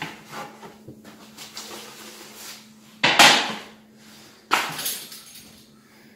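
Metal baking tray handled with an oven glove: light scraping and taps as the pizza is slid off it, then two loud clanks, about three and four and a half seconds in, as the tray is put back at the oven.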